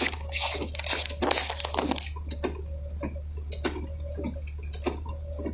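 Irregular taps of raindrops hitting the car's roof and windshield in moderate rain, heard inside the cabin over the vehicle's steady low hum.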